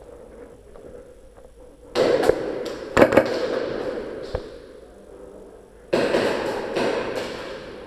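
Two bursts of rapid airsoft gunfire with sharp pops and echo, one of about two seconds starting about two seconds in and a shorter one near the end.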